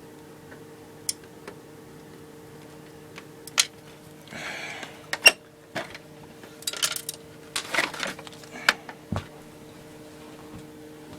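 Scattered metallic clicks, clinks and a brief scrape of a screwdriver and small screw against a computer's sheet-metal case and drive bay while a hard drive is being screwed back in, with a lost screw being fumbled for. A steady low hum runs underneath.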